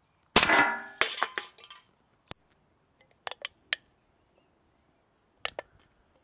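A CO2 blowback airsoft pistol shot hitting an empty aluminium drink can, which rings and clatters, with a second ringing hit about a second in. After that come a few light clicks and taps as the can is handled.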